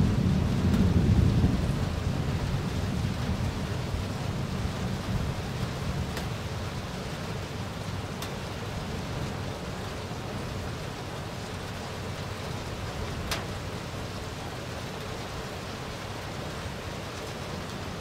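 Thunder rumbling low and fading away over the first few seconds, over steady rain falling.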